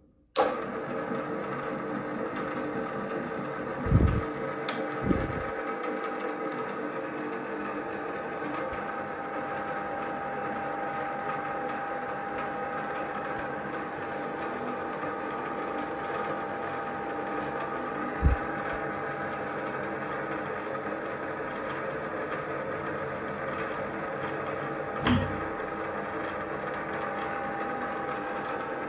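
Strands S32M geared-head drill press starting up about half a second in, then running steadily with a constant whine from its motor and gearbox. A few low thumps break in, about 4, 5, 18 and 25 seconds in.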